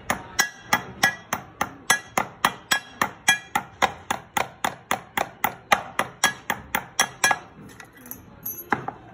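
Hammer blows on metal, about three a second in a steady rhythm, each with a short metallic ring, stopping about seven seconds in. A few lighter taps come near the end.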